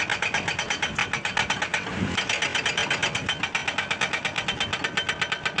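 An engine running steadily, with an even, rapid beat of about nine pulses a second.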